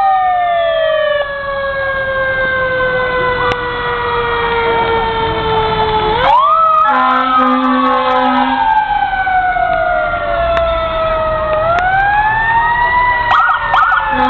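Several fire-apparatus sirens wailing together, each rising quickly and then falling slowly over several seconds, overlapping. A low steady horn note sounds for about two seconds near the middle.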